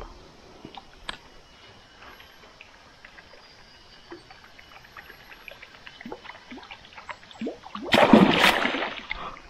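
A few faint clicks, then about eight seconds in a loud splash lasting about a second: a fish, a toman (giant snakehead), striking a lure at the water's surface.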